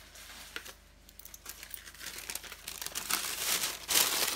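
Paper crinkling and rustling, getting louder and denser in the last second or so.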